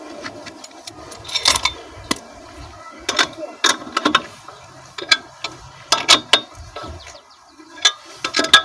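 Wheel lug nuts being tightened with a hand wrench: a series of short, sharp clicking bursts, roughly a second apart.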